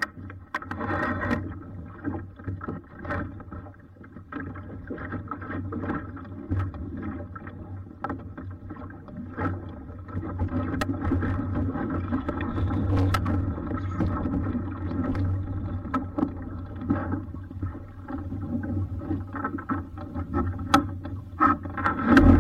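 Vareo sailing dinghy moving through the water: steady rush and slap of water along the hull, with wind buffeting the boat-mounted microphone. Occasional sharp clicks come from lines and fittings as the sailor handles them, and the sound grows a little louder about halfway through.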